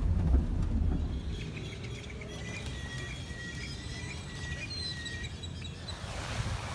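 Birds chirping, a quick run of short high calls, after a low rumble in the first second or so.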